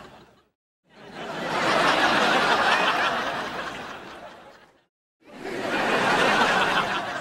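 Sitcom studio-audience laughter from Disney Channel and Nickelodeon shows (laugh track), played as separate clips with silent gaps between them: one dies away just after the start, a big swell of group laughter starts about a second in and fades out near five seconds, and another begins just after that.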